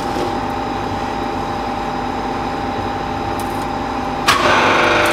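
Steady hum of a running workshop machine. About four seconds in, a louder machine sound starts suddenly and keeps going.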